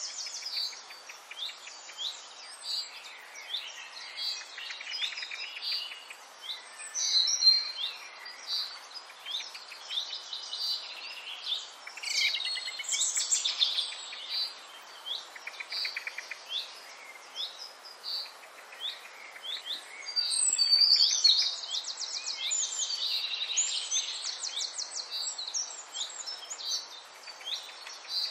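Several birds chirping and singing, many short calls overlapping, with a louder run of rapid trills about twenty seconds in.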